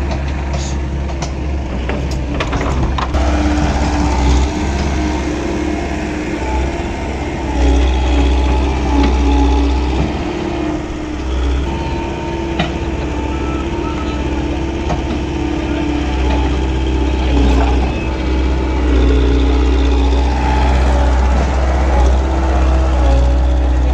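Excavator's diesel engine running steadily under work, with a low, continuous drone and a few sharp knocks or clicks in the first few seconds.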